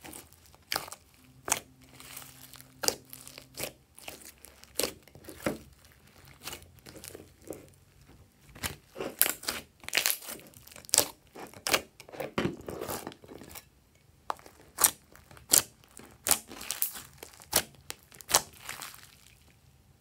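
Hands squeezing and stretching glossy slime, making irregular sticky clicks and pops, the sounds stopping just before the end.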